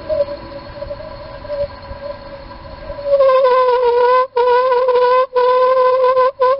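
Toyotomi Laser Burner kerosene heater resonating with a steam-whistle-like tone. It starts softer and wavering, then about three seconds in becomes a loud steady hoot, breaking off briefly three times. The resonance is the sign of the burner running short of air.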